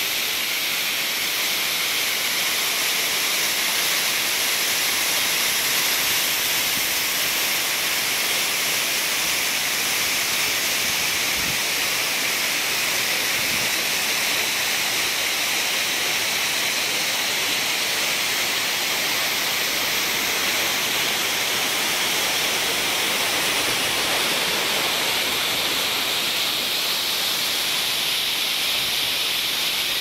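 Steady high hiss of a waterfall's rushing water, even and unchanging throughout.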